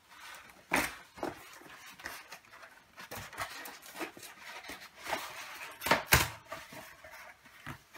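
Packaging being handled: rustling and crackling of plastic wrapping and cardboard, with several sharp knocks, the loudest around six seconds in.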